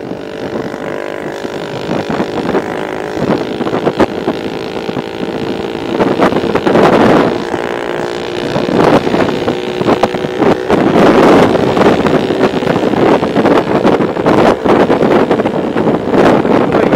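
Motorcycle engine running on the move, with wind buffeting the microphone; it grows louder about six seconds in.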